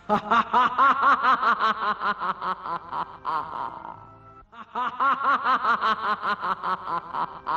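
A puppet character's voice laughing in two long runs of rapid, rhythmic ha-ha-ha pulses, about four or five a second, with a short break about four seconds in.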